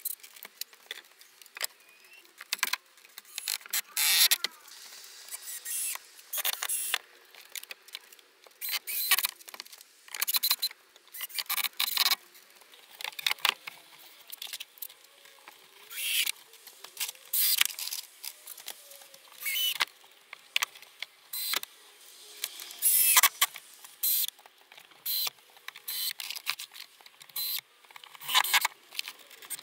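Carpentry handling sounds: short, irregular knocks, clicks and scrapes of timber and tools being worked, with no steady motor run.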